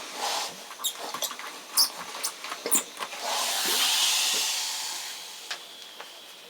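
Steam iron on a denim patch: a few short clicks and knocks, then a burst of steam hissing from about three seconds in, swelling and then fading away over the next few seconds.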